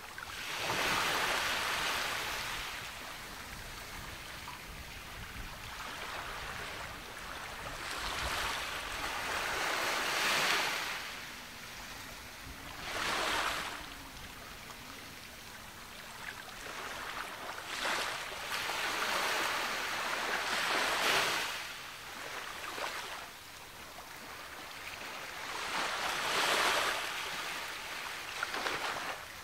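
Ocean waves breaking and washing up a beach, each surge swelling and falling away over a few seconds, several times in a row.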